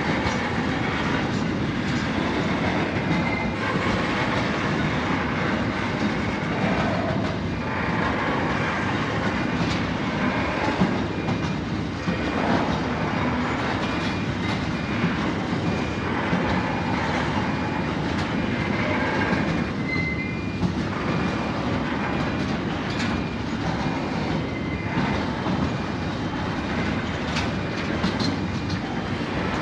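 Narrow-gauge freight train's phosphate hopper wagons rolling steadily past, wheels clattering over the rail with sharp clicks now and then and a few brief high wheel squeals.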